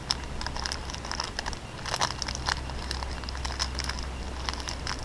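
Snickers bar wrapper crinkling and crackling as it is handled, in a run of short, irregular crackles.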